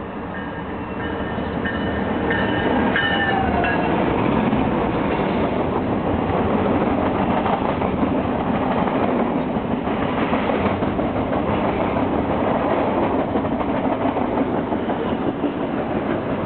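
Norfolk Southern freight train, SD70M-2 and C40-9W diesel locomotives with eight mixed freight cars, rolling past: a steady rumble of steel wheels on the rails that grows louder over the first few seconds. A horn note is just dying away at the start.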